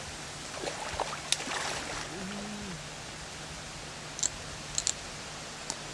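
Shallow water sloshing and splashing as hands work below the surface, with a few knocks early on, a brief murmured voice a little after two seconds, and a few short, high clicks near the end.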